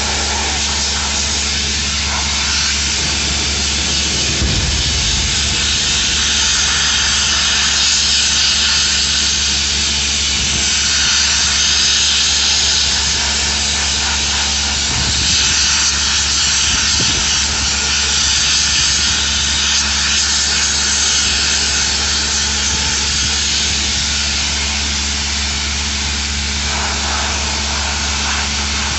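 Machinery running steadily inside the sludge tank during robotic cleaning: a loud continuous hiss over a low hum. A few low thuds come around four to five seconds in and again around fifteen to seventeen seconds.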